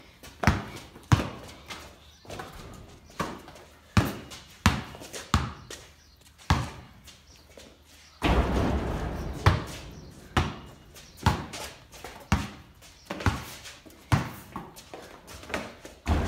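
Basketball being dribbled: sharp bounces at an uneven pace, echoing in a sheet-iron shed. About eight seconds in, a shot hits the backboard with a loud bang and a rattle that fades over about two seconds. Another shot strikes near the end.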